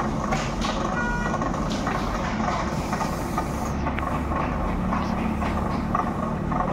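Motorized potter's wheel running with a steady mechanical rumble while wet clay is shaped on it, with a brief faint high tone about a second in.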